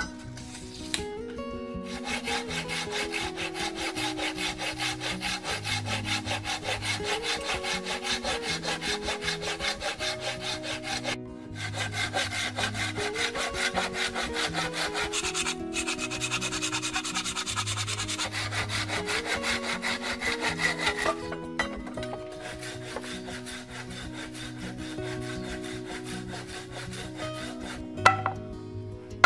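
Hand saw cutting through a round wooden pole with quick back-and-forth strokes, in three long runs with brief pauses between, stopping about three quarters of the way through. Background music plays underneath, and there is a single sharp knock near the end.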